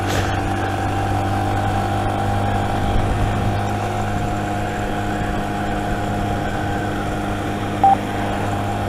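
Motorcycle engine running steadily at a cruise, heard from the rider's helmet. A short electronic beep sounds about eight seconds in.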